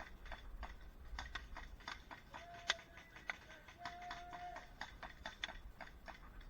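Airsoft guns firing: faint, rapid, irregular clicks of shots, several a second, with two short steady tones about a third and two thirds of the way through.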